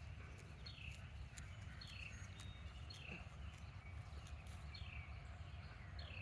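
A bird calling faintly with a short falling chirp, repeated about once a second, over a low steady rumble with a few faint clicks.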